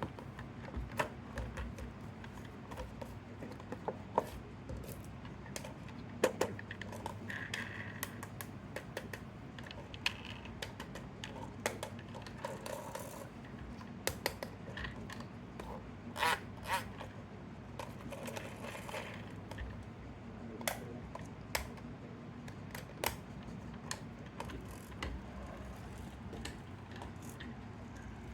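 Irregular clicks, taps and scrapes of small hard objects being handled, with a few short rustles, over a faint steady hum.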